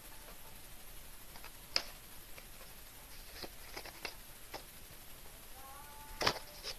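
Scattered light clicks and crinkles of a plastic blister pack of tablets being handled and turned over close to the microphone, with a sharper click near the end.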